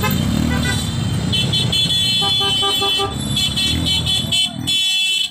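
Motorcycle horns tooting in quick repeated beeps, several at once, over the running engines of a slow motorcycle convoy. The engine rumble drops away near the end.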